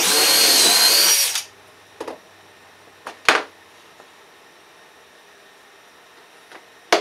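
Cordless drill boring a pocket hole into a board held in a pocket-hole jig, running for about a second and a half and then stopping. A few sharp knocks follow as the drill and board are handled on the bench.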